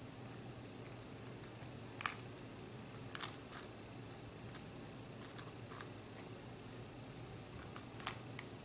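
A few faint clicks and ticks of rosary beads being laid against a coaster mold, the sharpest about two, three and eight seconds in, over a faint steady hum.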